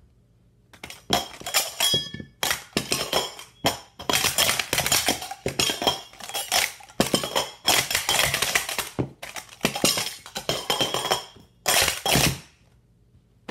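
Stainless steel Super Stacks sport-stacking cups clattering loudly in quick flurries of metal-on-metal clanks as they are stacked up and down through a speed-stacking cycle, like pots and pans banging together. The clatter starts about a second in and stops shortly before the end.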